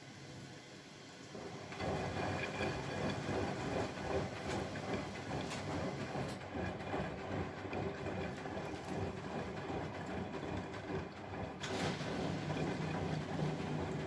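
Bosch Maxx WFL 248Y front-loading washing machine running. Its noise starts abruptly about two seconds in and goes on steadily, and a low hum comes in near the end.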